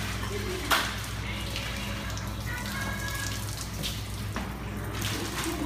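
Food-processing room noise: a steady low machine hum with running water and light knocks from work at the steel tables, the loudest a single sharp knock just under a second in.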